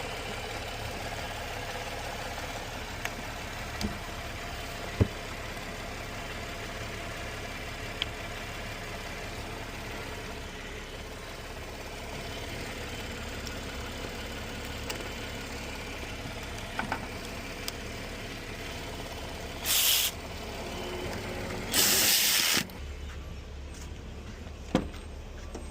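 2017 Chevrolet Camaro's V6 engine idling steadily after a thermostat and coolant sensor replacement, with a few light clicks and two short bursts of hiss about twenty seconds in.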